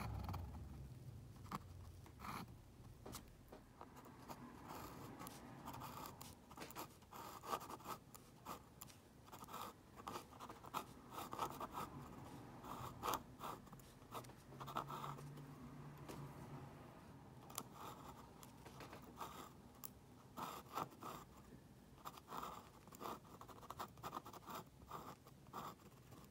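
Faint scratching of a steel dip-pen nib on textured watercolor paper in a Moleskine sketchbook, in many short, irregular strokes.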